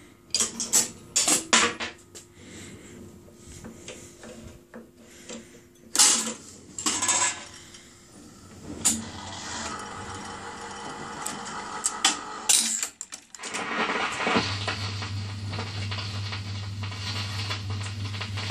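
Matebois S80 jukebox's selection keys and record-changer mechanism at work: a series of clicks and clunks over a faint running motor. About fourteen seconds in, a steady low hum and a hiss come up from the newly repaired amplifier, just before a record plays.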